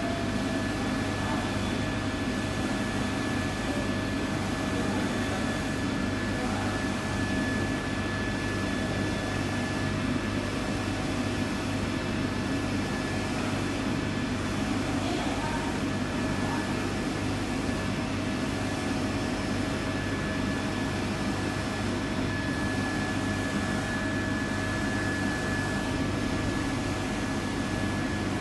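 Machinery running steadily: an even hum and hiss with a couple of constant whining tones, unchanging throughout.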